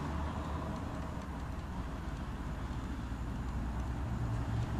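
Steady low rumble of outdoor background noise, with nothing standing out.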